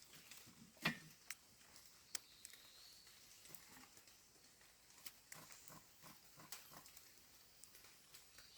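Faint footsteps of an animal moving through forest leaf litter: soft thuds and light crackles, with one sharp snap about a second in.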